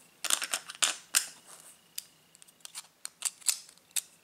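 Small clicks and rattles of a Hot Wheels die-cast car's metal body and plastic chassis handled in the fingers: a quick run of clicks at first, then scattered single clicks.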